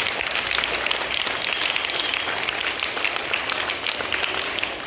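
Audience applauding: many hands clapping steadily, a dense patter of claps.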